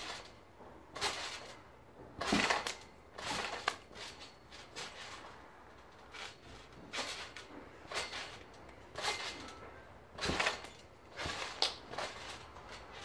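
Trampoline mat and springs under a child bouncing and landing: a string of short rustling thumps, irregular at about one a second, loudest about two seconds in and again near ten seconds.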